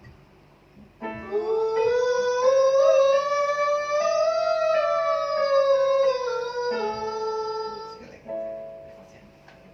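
A singer holds one long vowel in a vocal exercise, the pitch sliding slowly up and then back down, over held accompanying instrument notes. Near the end a fresh instrument note sounds and fades.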